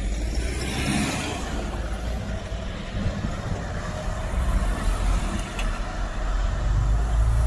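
Road traffic going by on a town street, with a low rumble of wind on the microphone. A vehicle swishes past about a second in.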